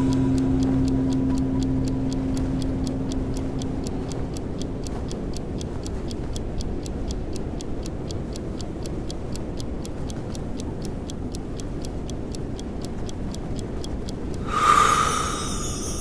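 Snowstorm wind ambience with a rapid, regular ticking like a clock counting out a breath hold. A low gong-like tone struck just before rings out and fades over the first few seconds. Near the end a short, louder burst stands out over the wind.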